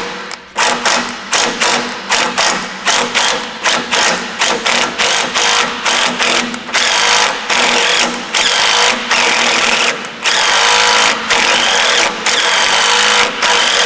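Cordless impact wrench hammering on a rusted, seized bolt of a Toyota 4Runner's transmission cooler line. It is run in short trigger blips at first, then in longer runs of a few seconds with the motor whine rising and falling, working the corroded bolt loose.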